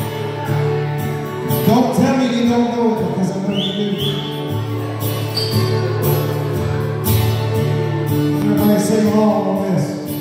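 A live country band playing electric guitars and a pedal steel guitar, with several sliding notes gliding up in pitch.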